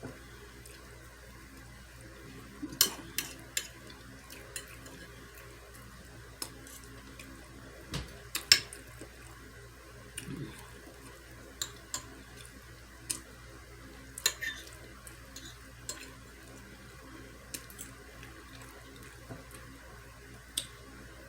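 Close-up eating sounds: scattered sharp clicks and wet smacks of chewing and handling food, over a steady low hum.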